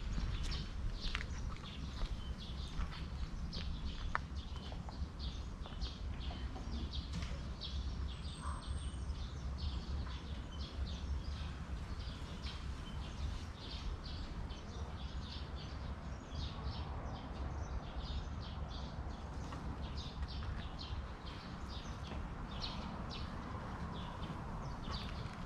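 Small birds chirping in quick, repeated short notes over a steady low rumble of outdoor background noise.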